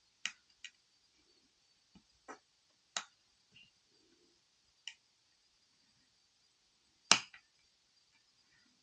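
Small sharp clicks and taps of a tool against phone parts while fitting a tiny screw, about seven irregular clicks with the loudest about seven seconds in.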